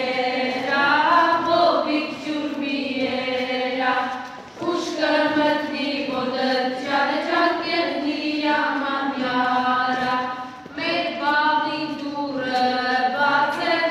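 A mixed group of children and adults singing an Armenian folk dance song together, in long sung phrases with brief pauses for breath about four and ten seconds in.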